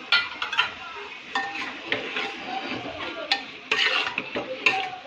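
A metal spoon stirring and scraping chicken and spices around a pressure cooker, with clinks of the spoon against the pot and a faint sizzle.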